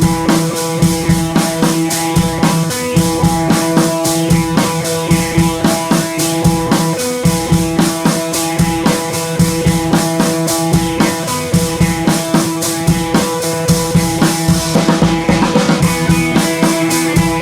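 Intro music: a rock track with drum kit and guitar, a steady beat of regular drum hits.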